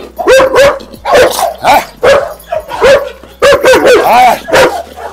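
A dog barking loudly and repeatedly, a quick run of about a dozen fairly high barks, two or three a second.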